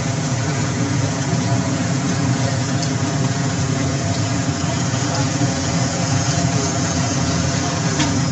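Vehicle engine idling steadily, a continuous low hum with no change in speed. A single click near the end.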